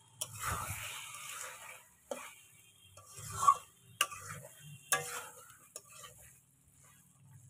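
A spatula stirs and scrapes chicken curry frying in a steel kadai, with several sharp clinks of the spatula against the pan.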